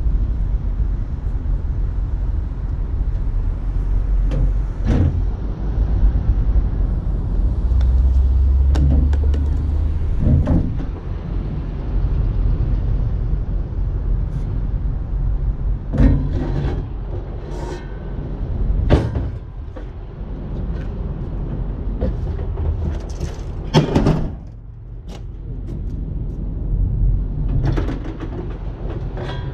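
Steel log bunk parts being handled on a flatbed trailer's deck: scattered metal knocks and clanks, a few seconds apart, over a steady low rumble.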